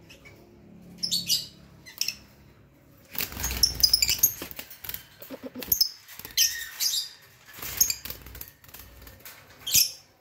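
Rosy-faced lovebirds giving short shrill chirps, several times, while wings flap and the wire cage rattles and scrabbles as a bird is put in by hand.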